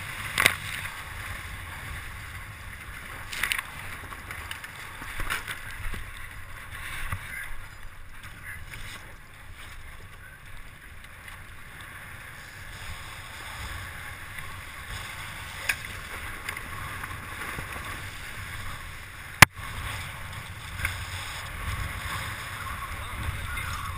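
Water rushing and splashing along a Hobie catamaran's hulls as it sails fast, with a few louder splashes of spray. One sharp knock stands out about three-quarters of the way through.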